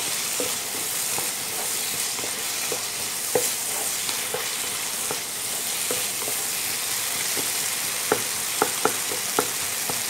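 Mutton and sambar onions sizzling in a nonstick pan as a wooden spatula stirs them. The spatula knocks against the pan now and then, and from about eight seconds in it knocks several times a second.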